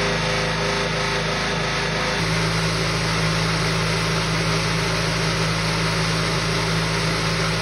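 Small electric vibrating motor clamped to a metal washplant feed deck, running with a steady low hum and a rough rattling noise as it shakes sand down the deck. The hum changes character about two seconds in.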